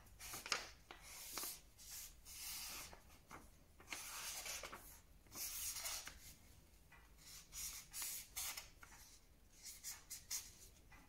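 Two pens drawing on paper: short, irregular scratching strokes that come and go in bursts.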